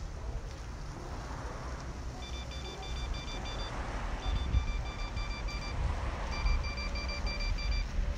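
Rapid electronic beeping, about five short beeps a second, in three runs starting about two seconds in, over a steady low rumble of wind on the microphone.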